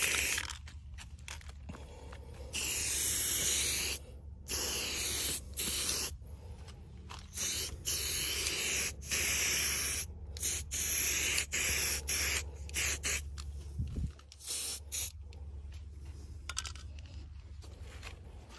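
Aerosol spray paint can hissing in stop-and-start bursts as the nozzle is pressed and released, each burst lasting from a fraction of a second to about a second and a half. The bursts come thick and fast at first and grow sparser and fainter in the last few seconds.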